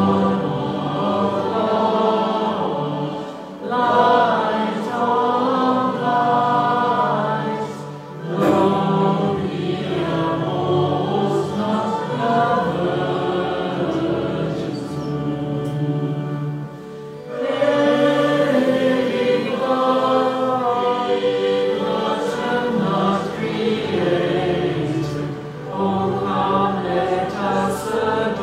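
A choir singing a hymn, in sung phrases with short breaks between them.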